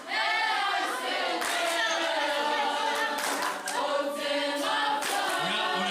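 Choir singing in harmony, several voices holding and moving between notes in phrases.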